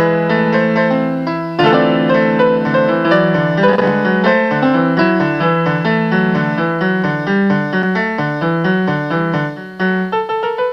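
Piano playing an instrumental piece: a melody over held chords in the low and middle range, then a quick rising run of notes near the end.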